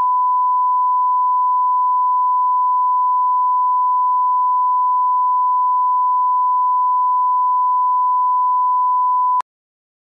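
Steady 1 kHz line-up test tone of a bars-and-tone video leader, a single unchanging pitch that cuts off suddenly about nine seconds in.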